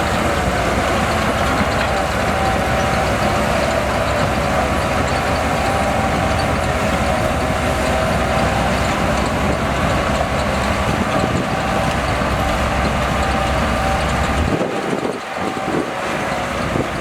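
Shantui DH17C2 bulldozer's diesel engine running steadily, a constant drone with a deep rumble. About 14.5 s in, the low rumble cuts off suddenly and a thinner, uneven sound follows.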